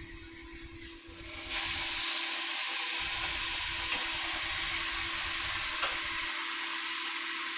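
Seasoned chicken breasts frying in hot oil, with the sizzle jumping up suddenly about a second and a half in as the pieces go into the pan and then carrying on steadily.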